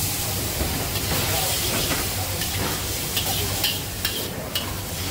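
Char koay teow stir-frying in a wok over a gas burner: steady sizzling as water squirted into the hot wok hits the noodles, with the metal spatula scraping and clinking against the wok several times.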